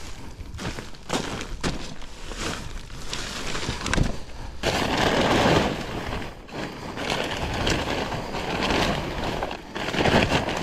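Plastic silage cover being pulled off a silo: irregular crackling and rustling with scattered knocks, swelling into a dense rush about halfway through and again near the end.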